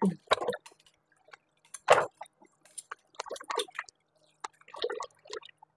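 Thick corn fritter batter being stirred in a ceramic bowl with a spatula: irregular wet squelches and light clinks, with one sharper knock about two seconds in.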